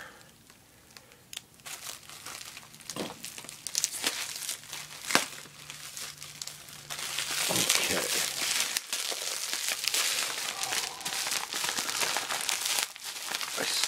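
Clear plastic bag and bubble wrap crinkling as hands handle and unwrap a wrapped package. At first there are sparse crackles with a sharp click about five seconds in, then steady, dense crinkling from about halfway on.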